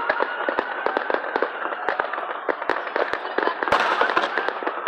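Fireworks crackling and popping in a rapid, irregular string of sharp cracks, several a second, with one louder crack about three quarters of the way through and a faint steady whistle underneath.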